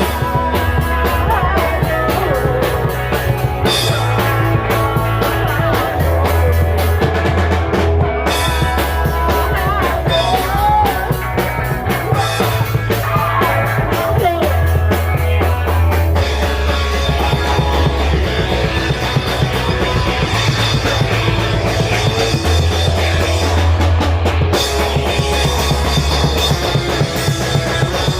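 Punk rock band playing: drum kit driving a steady beat under bass and guitars, the bass holding long notes that change every couple of seconds.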